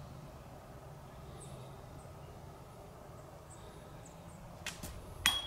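Quiet outdoor background with a few faint, short, high bird chirps. Near the end, a small click and then one loud sharp metallic clank that rings briefly.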